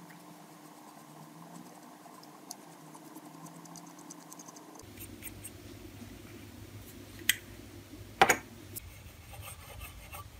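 Faint scratching and rubbing as the metal burner of an old kerosene lamp is handled and polished by hand, with small ticks and a louder knock about eight seconds in.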